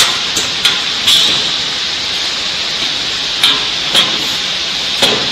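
Stainless-steel sheet-metal panel being handled and clipped onto a bucket elevator casing: several light, sharp clicks and knocks, a few in the first second and more near the end, over a steady hiss.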